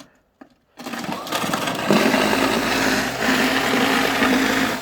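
Toro Power Shovel's electric motor and rotor starting up about a second in, building over the next second, then running steadily with a constant whirring tone, dipping briefly once midway.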